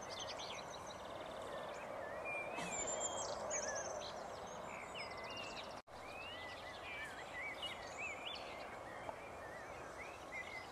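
Several songbirds singing, with repeated chirps, trills and short whistled glides, over a steady background hiss of open-air ambience. The sound drops out for an instant just past halfway.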